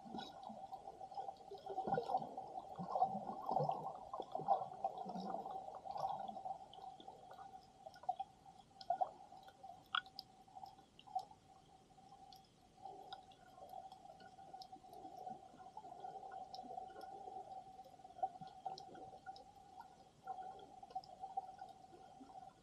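Muffled underwater sound heard through a submerged camera: gurgling, sloshing water, busiest in the first six seconds and quieter after, over a steady hum. Scattered faint clicks, the sharpest about ten seconds in.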